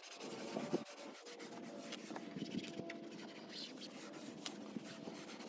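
A cloth wipe rubbing over a car's plastic interior door panel: soft, irregular scrubbing strokes.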